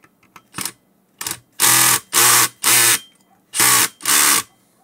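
Cordless electric screwdriver running in about seven short bursts, two faint ones and then five loud ones, on a circuit-board mounting screw of a motor controller. The screw is not coming free and seems to spin without backing out.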